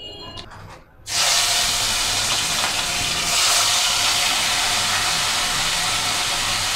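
Marinated silver pomfret (rupchanda) shallow-frying in hot oil in a pan: a steady, loud sizzle that starts suddenly about a second in.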